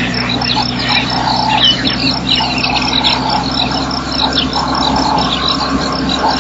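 Outdoor animal chorus heard through a webcam microphone: many short high chirps and quick whistles from small birds and frogs, with a steady high pulsing tone, over a constant low electrical hum and hiss.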